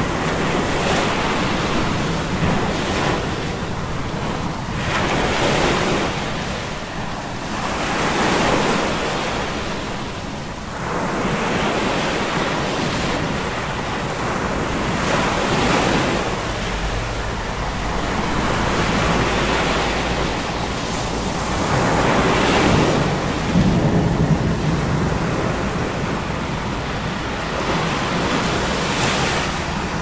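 Heavy storm surf crashing, with waves surging and breaking every few seconds over a steady rush of wind.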